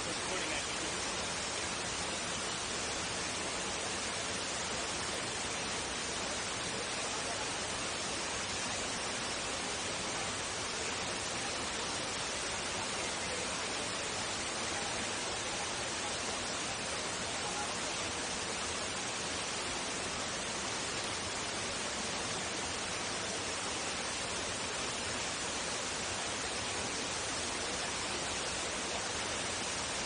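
Greeter Falls waterfall making a steady, even rush of falling water that does not change.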